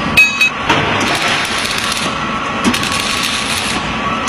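Two sharp metal clinks, the first ringing briefly, then the steady crackling hiss of arc welding on the conveyor pulley as the lagging's retainer bars are welded on.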